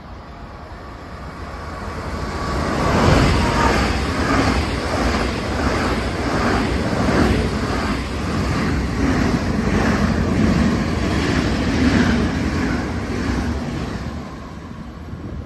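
SBB FV-Dosto double-deck electric Intercity train passing through the station at speed without stopping. A rising rush as it approaches gives way to a loud steady rumble and rush of air, with a regular clatter of wheels about one and a half times a second, fading as the rear of the train goes by near the end.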